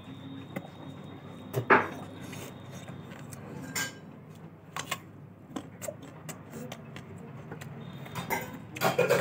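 Someone eating ber (Indian jujube) fruit close to the microphone: scattered small clicks and knocks. Louder eating sounds come about two seconds in and again near the end.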